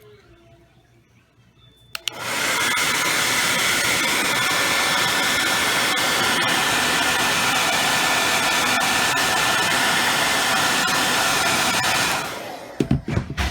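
Hand-held hair dryer switched on about two seconds in and blowing steadily for about ten seconds, then dying away near the end as it is switched off, with a few knocks of handling.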